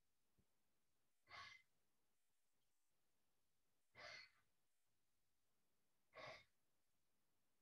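A man's paced qigong breathing: three short breaths, evenly spaced about two and a half seconds apart, against near silence.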